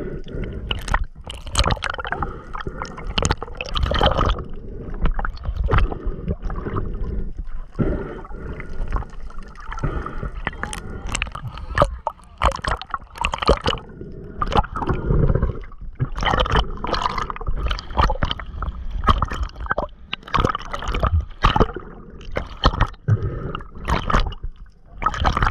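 Water gurgling and sloshing around a pole-mounted action camera as it dips under and breaks the surface, with irregular splashes.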